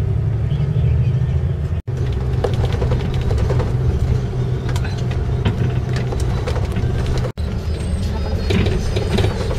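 Steady low engine and road rumble heard from inside a moving bus, with light clicks and rattles over it. The sound cuts out for an instant twice, about two seconds in and about seven seconds in.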